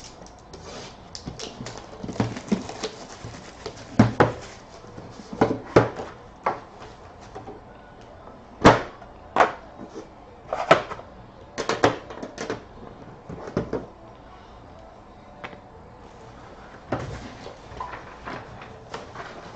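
Hands handling and opening a sealed trading-card box and its packaging: scattered sharp taps, clicks and knocks with short rustles of wrapping.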